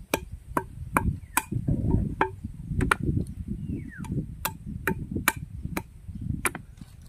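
Hammer tapping the shells of mangrove snails against a log, a run of sharp knocks about two a second, knocking off the shell tips so the snails can be cooked.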